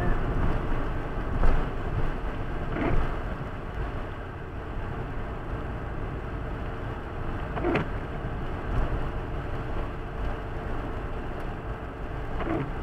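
Car cruising at about 80 km/h on a wet road, heard from inside the cabin: steady engine and tyre noise with a faint held tone. A few short knocks come several seconds apart.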